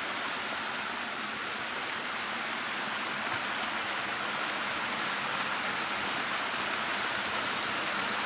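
Shallow river water rushing steadily down a small sloping weir, a constant even rush with no breaks.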